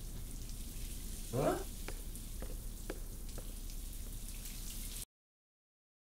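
Faint steady hiss with a brief voice sound about one and a half seconds in and a few soft, scattered clicks, then the sound cuts off abruptly to dead silence about five seconds in.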